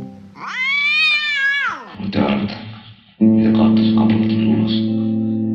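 A cat's single long meow, rising and then falling in pitch, over slow guitar music; the guitar comes back in louder about three seconds in.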